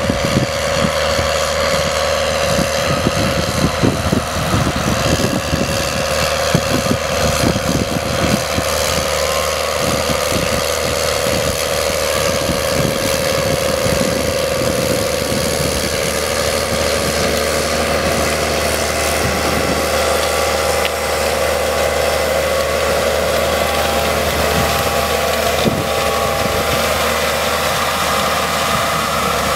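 New Holland tractor's diesel engine running steadily under load as it pulls a maize planter, with a steady whine sitting over the engine hum.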